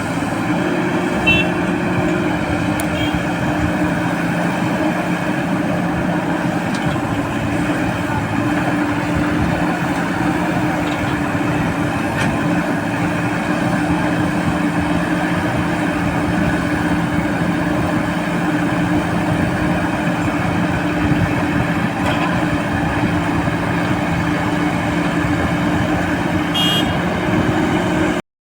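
Diesel engine of a JCB 4DX backhoe loader running steadily at a constant pitch.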